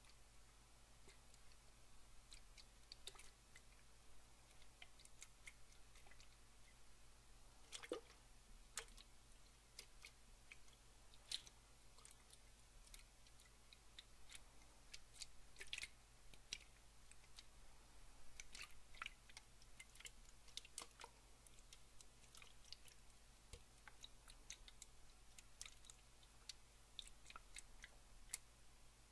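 Faint, close-miked water: irregular small wet clicks and drips, with a few louder ones scattered through, over a low steady hum.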